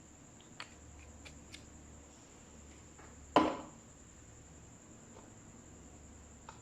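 Slime being handled and mixed: a few faint clicks, then one loud sharp smack about three and a half seconds in that dies away quickly.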